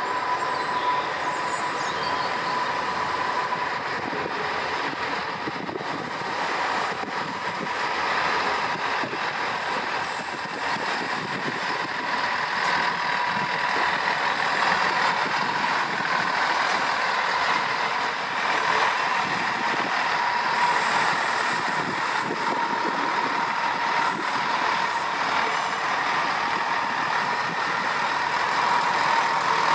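Diesel train engines running steadily at a station platform, a constant engine noise with a steady high tone.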